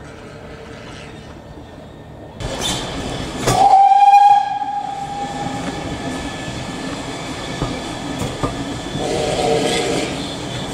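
Steam train whistle sounding once, sharply, for about two seconds. Before and after it is the steady running noise of the train, heard from aboard a moving carriage; this noise comes in suddenly about two seconds in, after a quiet start.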